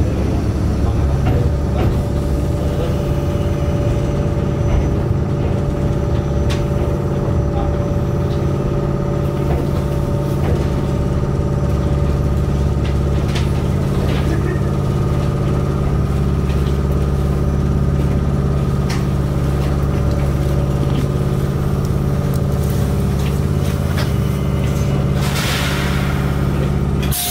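Mizuma Railway 1000 series electric train standing still, its onboard equipment giving a steady low hum with a few light clicks. A short hiss of air comes near the end.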